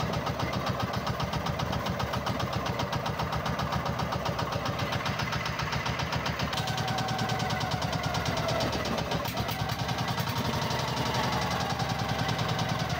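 Engine of a motorized outrigger fishing boat (bangka) running steadily under way, with a rapid, even beat.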